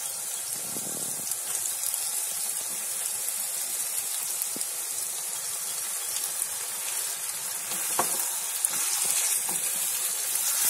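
Sliced onions and raw chicken pieces sizzling in hot oil in a non-stick kadai as the chicken is added, a steady hiss with a few light clicks. The sizzle grows a little louder about eight seconds in.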